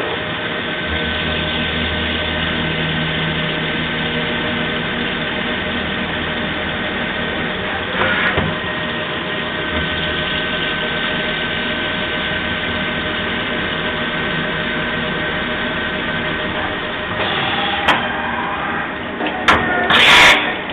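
Mori Seiki MV Junior CNC vertical machining centre milling valve bodies under flood coolant: a steady machine and cutting noise with a faint high whine and the hiss of coolant spray. There is a single knock about eight seconds in and a few loud clanks near the end.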